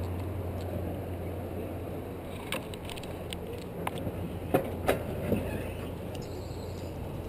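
Alpine coaster sled rolling on its tubular steel rail: a steady low rumble whose low hum fades about a second in, with several sharp clacks around the middle, the loudest two close together.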